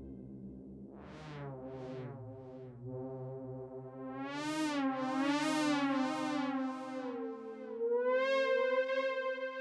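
Dave Smith Instruments Prophet 6 analog polyphonic synthesizer playing a preset patch with no effects: held notes whose brightness swells and fades again several times as the filter opens and closes, with a slow waver in pitch in the second half.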